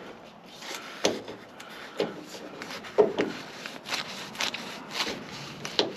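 Hose coupling being screwed onto a water heater's drain valve: irregular scraping and clicking of the threaded fitting, with short knocks about once a second.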